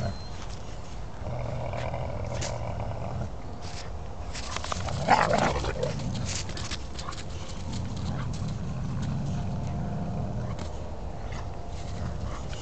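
Several dogs play-fighting roughly to settle who dominates whom, growling, with one loud yelp about five seconds in.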